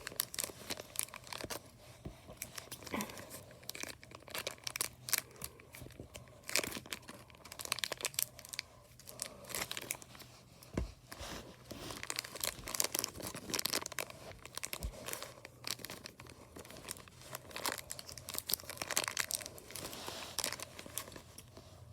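Toy packaging being torn open and crinkled by hand: irregular rustling, crackling and tearing throughout.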